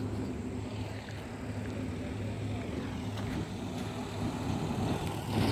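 Steady low engine hum of a motor vehicle running nearby, holding an even pitch over background traffic noise.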